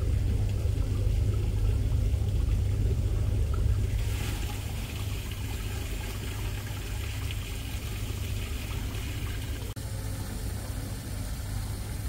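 Small indoor waterfall trickling and splashing over rocks onto a pebble bed, over a steady low rumble.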